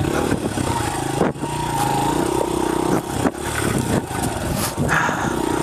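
Honda CRF100F dirt bike's small air-cooled four-stroke single running at low speed over rough rocky ground, the throttle opening and closing so the engine note rises and falls, with a few brief dips about a second in and around three seconds in.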